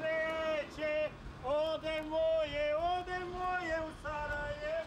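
A voice singing a few long, held notes in phrases, with short breaks between them.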